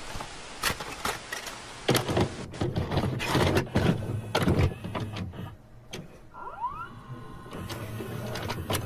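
A run of irregular clatters and knocks over a rough noisy background, with a short rising squeak about six and a half seconds in.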